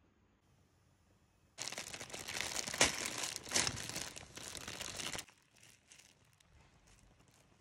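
Plastic Indomie instant-noodle packet and seasoning sachets crinkling as they are handled and opened: irregular rustling with sharper crackles, starting about a second and a half in and stopping a little after five seconds.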